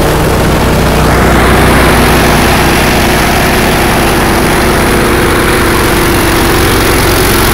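Allis-Chalmers One-Seventy tractor's four-cylinder gasoline engine idling steadily through a replacement 1986 Camaro muffler. It is missing on one cylinder, which the owner puts on the second or third, and he thinks it is not getting enough fuel.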